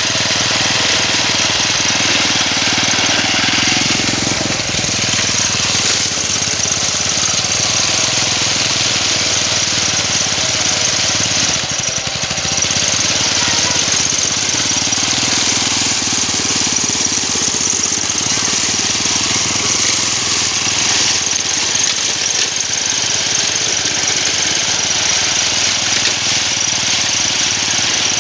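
Small engine of a homemade push mower running steadily as it cuts grass.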